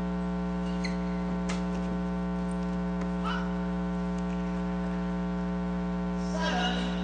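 Steady electrical mains hum with a ladder of overtones, with a few faint short clicks and squeaks over it.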